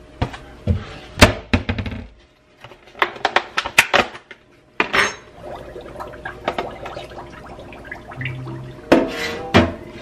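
Dishes clattering in a stainless steel sink: a ceramic plate and a hard plastic takeout container being picked up, set down and knocked together, giving bursts of sharp clacks and knocks. The loudest knock comes early, with two more strong ones near the end.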